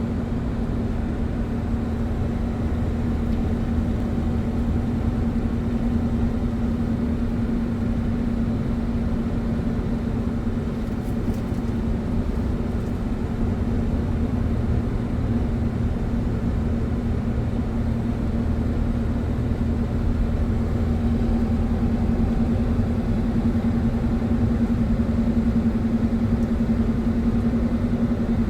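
Road noise heard while driving a 2001 Ford Escape XLT, with a steady low drone that the owner hears as a 'whom-whom-whom' and says comes from the vehicle in motion, not the engine. It gets a little louder in the second half. The drone appears only at road speed and is more noticeable above 45 mph; the tyres have no bulge and the alignment is good, so its cause is not yet known.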